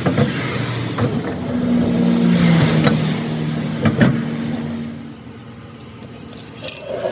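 A truck engine running and revving up a little, with a few sharp knocks; it fades away about five seconds in.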